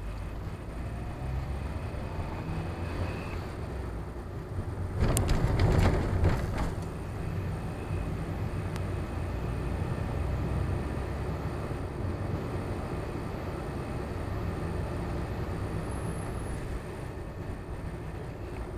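Car driving on a road, heard from inside the cabin: steady engine and tyre noise. About five seconds in, a louder burst of knocks and rattles lasts a couple of seconds.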